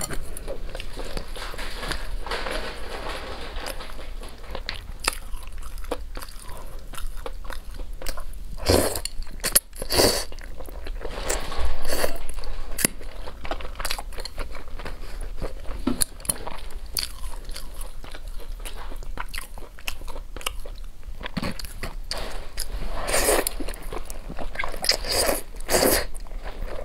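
Close-miked eating: crunchy bites and chewing of a fried chicken cutlet and wide flat noodles in chili oil, with a few louder bursts of bites and mouth noises about a third of the way in and again near the end.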